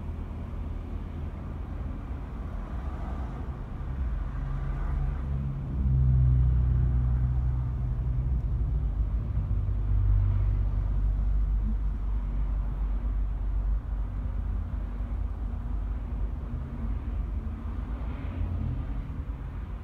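Low rumble of slow-moving car and road traffic, swelling louder for several seconds from about six seconds in, then settling back.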